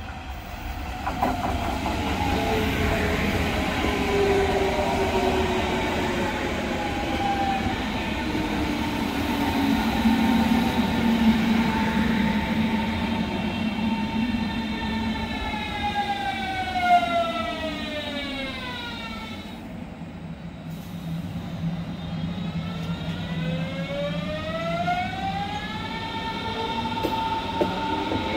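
Berlin S-Bahn class 481/482 electric train rolling in with a steady rumble, its electric drive whine falling in pitch as a stack of tones as it brakes to a halt. After a short lull the whine rises again in pitch as it pulls away.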